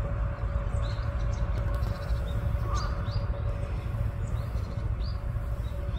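Steady low rumbling noise on the microphone with a faint steady hum, and several short, high bird chirps scattered through it.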